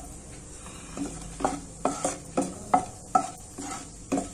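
Wooden spatula stirring cashews frying in ghee in a granite-coated kadai: a run of scrapes and knocks against the pan, roughly two a second, over a faint sizzle of the ghee.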